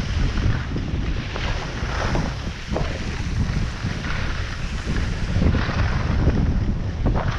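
Wind buffeting the microphone of a camera worn by a skier heading downhill, a rough, steady rumble, over the hiss of skis sliding on packed, groomed snow, with a few brief swishes as the skis turn.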